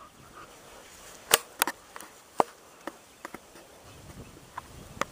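A dog knocking and scraping at a turtle's hard shell: a run of irregular sharp clicks and knocks, several strokes spread over a few seconds.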